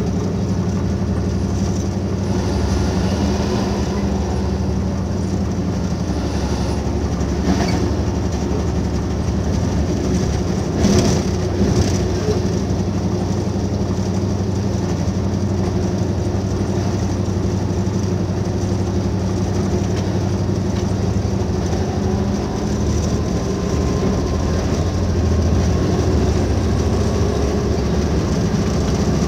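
V/Line N class diesel-electric locomotive under way, heard from inside its cab: a steady engine drone over wheel-on-rail rumble. A few sharper knocks, likely wheels over rail joints or points, come through about eight and eleven seconds in.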